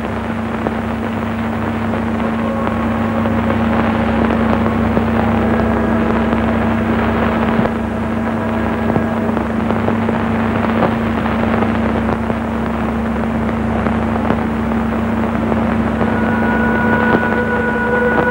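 Steady hiss with a constant low hum from a worn old film soundtrack. A few held tones come in near the end.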